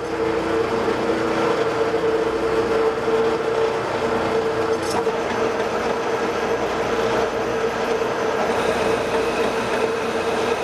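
Metal lathe running under power with a steady whine while the cutting tool takes a turning pass along the outside diameter of a steel bar.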